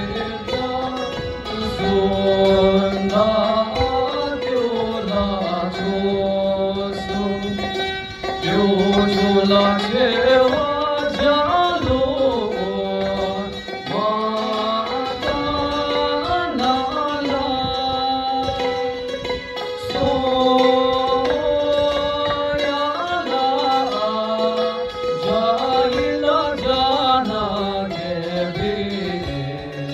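A male singer performing a song into a handheld microphone, with sustained, gliding vocal notes over a steady instrumental accompaniment.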